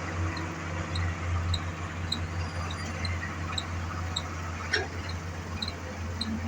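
Excavator diesel engines running with a steady low drone. A short, high chirp repeats about twice a second over it, and there is one sharp click a little before the end.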